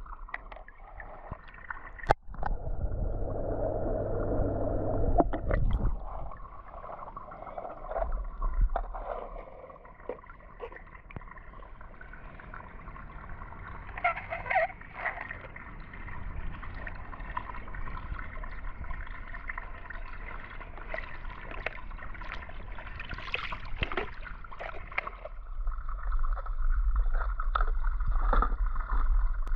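Water sloshing and gurgling as small toy cars are moved about in it, with scattered small knocks and clicks and one sharp click about two seconds in.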